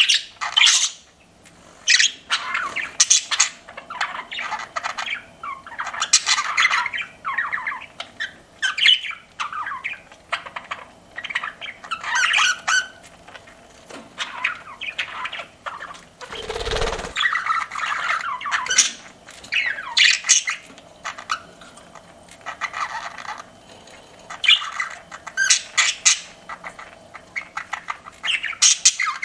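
Pet budgerigars chirping and chattering: a steady run of short, quick chirps and warbles with a few sharper squawks. One brief low bump sounds about halfway through.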